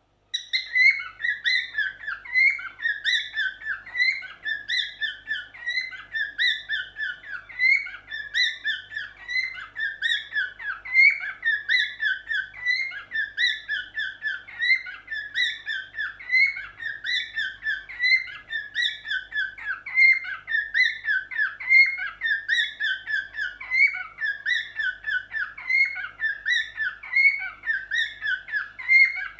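Cockatiel singing: a continuous run of quick chirping, warbling notes that begins about half a second in.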